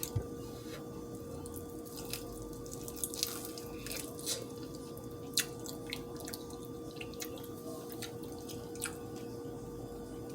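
Wet chewing and mouth clicks of someone eating a hot and spicy chicken wing dipped in ranch, irregular small smacks over a steady faint hum.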